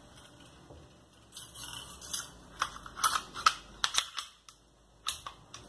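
Light metallic clicks and clacks of a Bersa pistol's parts being handled and fitted back together, several sharp clicks in quick succession in the second half. A soft rustle of cloth comes before them.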